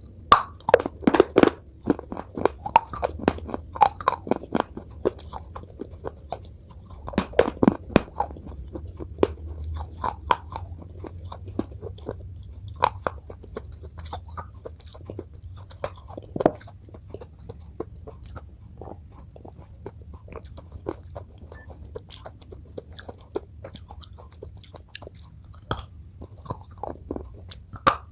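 Close-miked crunching and chewing of a hard, brittle food, with loud clusters of crunching bites about a second in and again near eight seconds, then softer, scattered chewing crunches, over a steady low hum.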